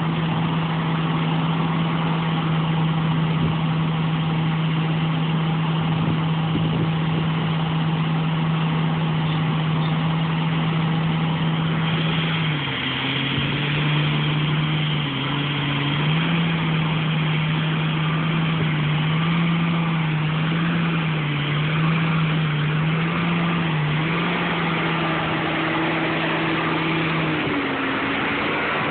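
Diesel engine of farm harvest machinery running steadily. About halfway through, its pitch starts wavering up and down and a faint high whine joins in.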